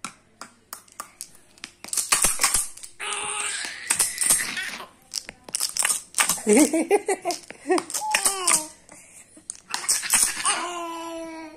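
A baby babbling and squealing, with short clicks and rustling among the sounds, and one longer held note near the end.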